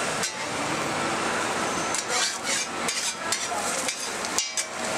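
Ramly burger frying on a flat-top griddle, with a steady sizzle under a quick run of metal spatula scrapes and taps about two seconds in and another near the end.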